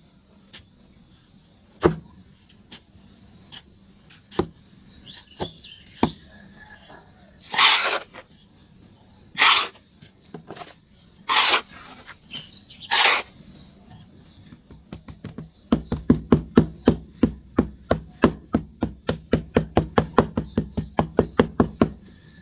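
Charcoal being worked by hand: scattered single taps, then four short scraping, crumbling rushes, then a fast, even run of knocks, about five a second, over the last six seconds.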